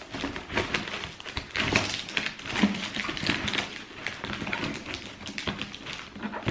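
Packaging rustling and crinkling as trainers are worked out of their box by hand, with scattered irregular taps and clicks.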